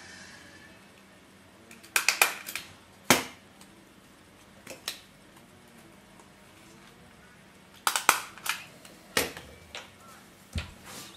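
Scattered sharp clicks and taps of paper model parts and tools being handled on a work surface: a cluster about two seconds in, a single click a second later, then another run of clicks from about eight seconds in.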